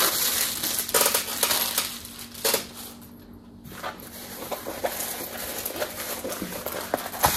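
Paper wrapping and a clear plastic sleeve crinkling and rustling as a rolled diamond painting canvas is unwrapped by hand. There is a short lull about three seconds in, then the rustling picks up again.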